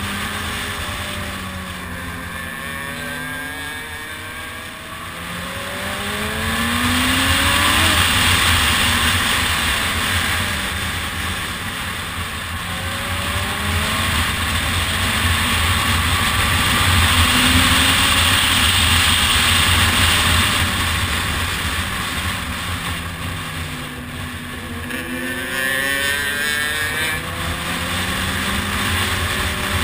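Motorcycle engine accelerating and shifting gears, its pitch repeatedly rising and then dropping at each shift, under a rush of wind noise that swells twice as the bike speeds along.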